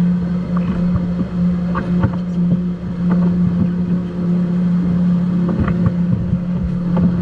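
A powerboat engine running at a steady idle, with scattered knocks and clatter from the crew clambering through the cockpit's roof hatch.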